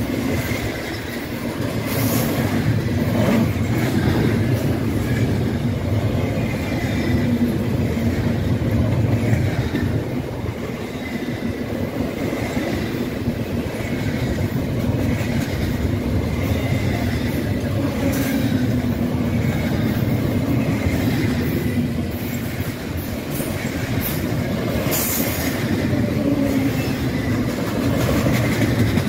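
Double-stack intermodal container train rolling past at speed: a steady, loud rumble of steel wheels on rail, with a faint high ringing tone and a few sharp clicks as wheels cross rail joints.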